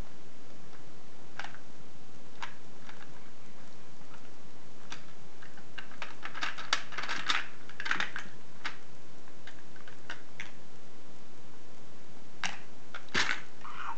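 Hard plastic shape-sorter pieces clicking and clattering against a plastic shape-sorter cube: scattered single taps, a busier run of clatter in the middle, and another short run near the end.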